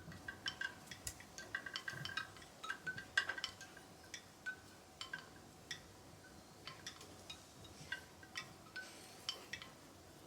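Faint, irregular light clicks and clinks of small hard objects, some with a brief tinkling ring, several a second at first, then sparser.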